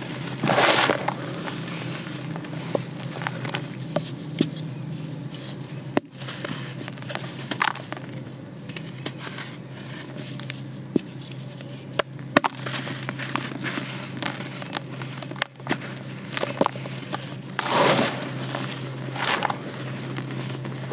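Dry red dirt crumbled by hand in a plastic basin: crunching and crackling as dry clumps break, with hissing rushes of loose dirt falling through the fingers, the loudest about a second in and about 18 seconds in.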